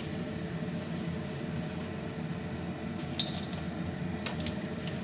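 Boiled crawfish clattering and clinking a few times as they are scooped out of the pot into a basin, over a steady low hum.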